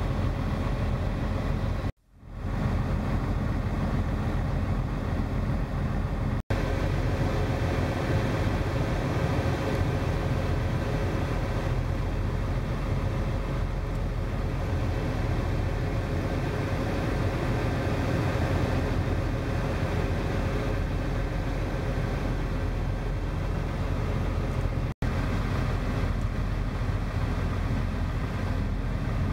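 Semi-truck diesel engines running at low speed as tractor-trailers pull slowly past, a steady low rumble. It breaks off briefly three times at edits, about two, six and twenty-five seconds in.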